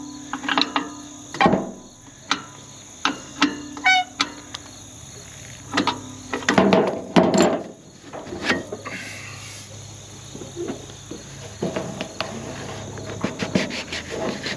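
A hand wrench loosening a band clamp on a tractor's stack, with irregular metal clicks and knocks of tools and parts on the hood and a short quick run of ticks about four seconds in. Insects drone steadily in the background.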